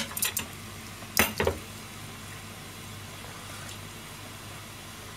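A kitchen knife knocks a couple of times against a plastic cutting board about a second in, after a few light clicks, then a steady low hiss of a pot simmering on the stove carries on.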